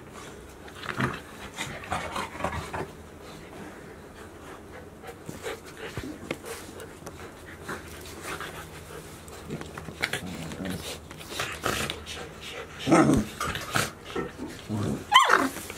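Golden retriever puppies play-fighting: play growls and panting, louder about two-thirds of the way through and again with a short cry just before the end.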